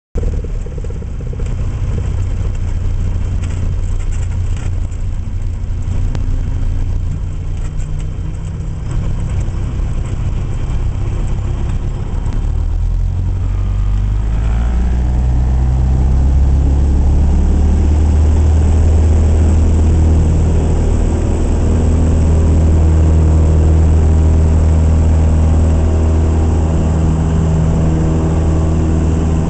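Cessna 172S Skyhawk's four-cylinder Lycoming engine and propeller, heard from inside the cabin. It runs at low power while lining up, then is throttled up about twelve seconds in, rising in pitch and loudness to a steady full-power run for the takeoff roll.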